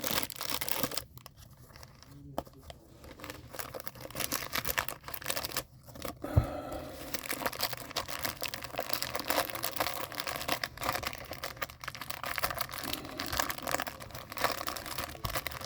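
Plastic wrapper of a baseball card rack pack being torn open and crinkled, with irregular small crackles and rustles and a short lull in the first few seconds.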